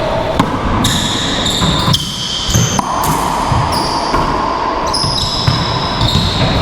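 Racquetball rally: repeated sharp hits of the rubber ball off racquets and the court walls, with sneakers squeaking in short high squeaks on the court floor, echoing in the enclosed court.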